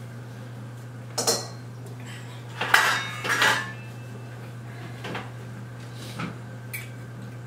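Metal cookware and utensils clattering: a few separate clanks and knocks, the loudest cluster about three seconds in, over a steady low hum.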